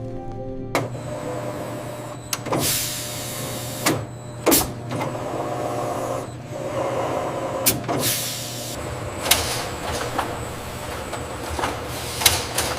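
Factory machinery running with a steady low hum, broken by repeated hisses of air and sharp clicks every second or two.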